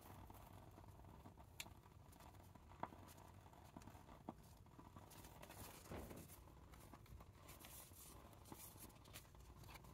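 Near silence with faint handling of paper craft materials: a few light taps and soft rustles.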